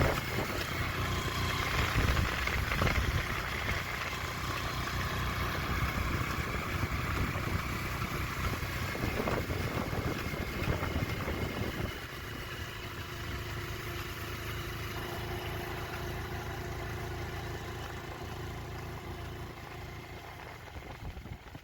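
A vehicle's engine running steadily, fading out near the end.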